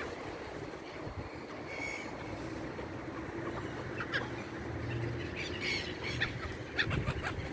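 Seabirds calling, a handful of short calls scattered through the few seconds over a low steady hum.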